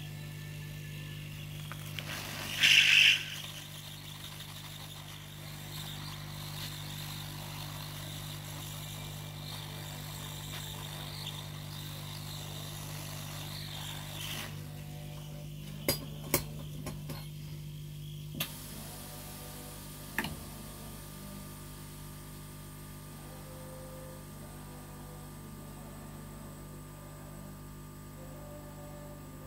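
Steady low electrical hum with a brief louder high-pitched sound about three seconds in. Later come a handful of sharp clicks, and the hum drops after one of them.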